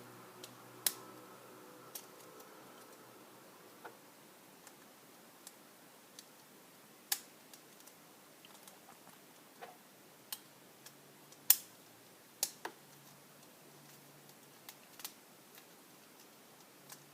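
Plastic Beyblade parts being handled and snapped together: a string of sharp, irregular clicks and taps, one every second or so, the loudest about halfway through.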